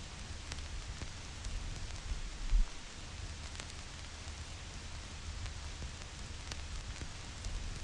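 Vinyl record surface noise: a steady hiss with scattered crackles and pops from the stylus in the groove, over a low rumble. A louder low thump comes about two and a half seconds in.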